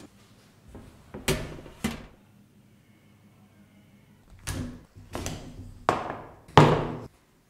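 Metal bakeware being handled and set down: a springform cake pan and baking tray knocking and clattering, six sharp knocks with a short ring, two early and four closer together later, the last the loudest.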